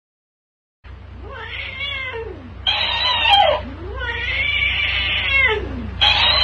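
A tabby cat yowls at a plush talking-hamster toy, and the toy plays each yowl back through its little speaker, higher and quicker. Starting about a second in: a long rising-and-falling yowl, the toy's echo, a second yowl, then the toy's echo again.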